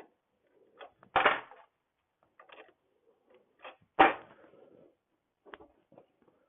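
Clicks and knocks of tools and metal parts being handled while a scooter is stripped down, with two loud knocks, one about a second in and one about four seconds in, and lighter clicks between.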